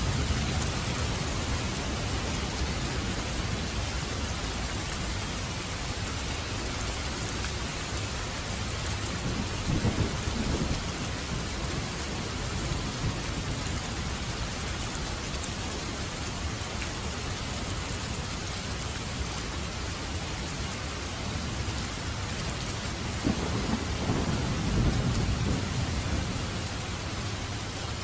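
Steady heavy rain falling, with low rumbles of thunder twice, once about ten seconds in and again near the end.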